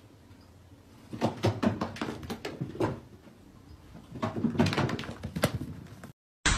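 Quick thudding footfalls of a long-haired cat bounding up carpeted stairs, in two runs of rapid thumps a few seconds apart.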